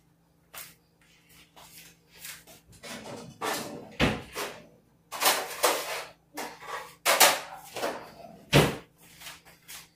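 A run of knocks, bumps and clatters of things being handled in a kitchen, like a cupboard or door being opened and shut, with the sharpest knocks about four, seven and eight and a half seconds in.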